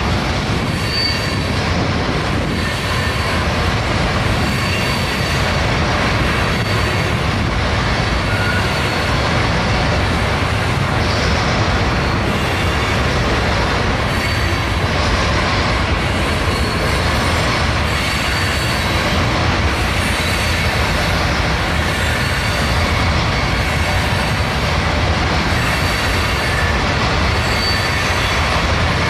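Freight train's hopper cars rolling across a steel girder bridge: a steady, loud rumble of wheels on rail, with faint high wheel squeals coming and going every couple of seconds.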